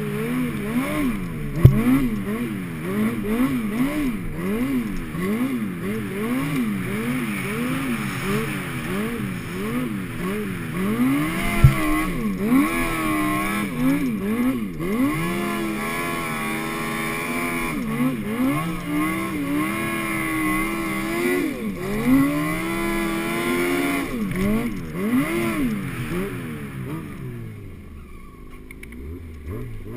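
Yamaha four-stroke snowmobile engine under load in deep fresh powder, its revs rising and falling about once a second at first, then held higher for longer stretches, and dropping near the end. Two sharp knocks stand out, one early and one about halfway through.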